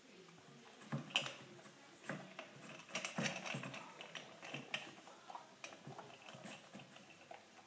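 Standard poodle eating dry kibble from a stainless steel bowl: irregular crunching and clicking, starting about a second in.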